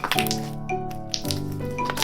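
Background music with a melody moving through short notes, with a few sharp clicks mixed in.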